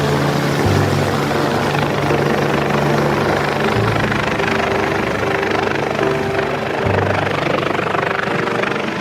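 Rescue helicopter running, its rotor and engine noise steady and loud, mixed with slow background music whose held chords change every few seconds.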